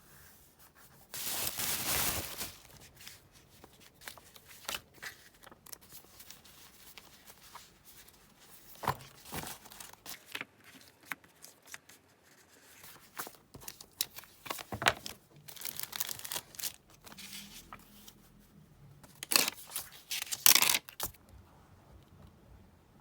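Paper stickers and masking tape being peeled and torn, with paper rustling and small taps in between. A longer tearing sound comes about a second in, and sharper ones come near the end.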